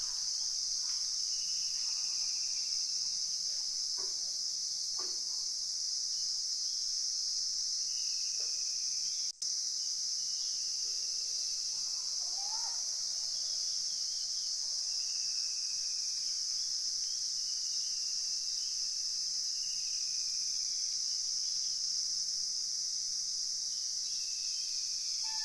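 Steady high-pitched insect chorus, with a bird repeating a short falling whistle every couple of seconds.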